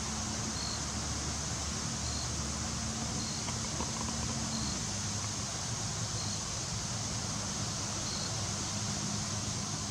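Steady outdoor background hiss with a low engine-like hum that drops slightly in pitch about halfway through, and faint short high beeps repeating about every second and a half.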